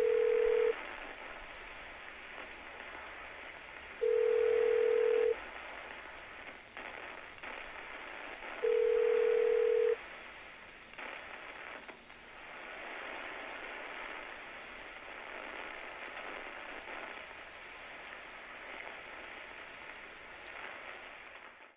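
A telephone ringback tone, a steady beep sounding three times about four and a half seconds apart, over a steady hiss of falling rain.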